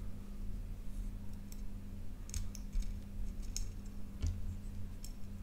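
Scattered faint clicks and ticks, about one a second, from small LEDs and their wire leads being handled and pushed into a small circuit board, over a low steady hum.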